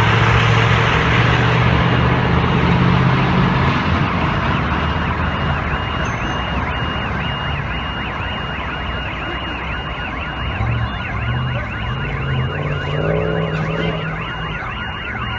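A heavy vehicle's engine running with a loud rushing noise in the first few seconds. From about four seconds in, an electronic alarm starts warbling rapidly, about three cycles a second, like a car alarm.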